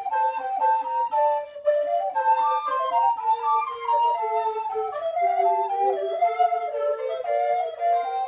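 Ensemble of wooden recorders of several sizes playing together: several interweaving melodic lines in quick, mostly stepwise notes.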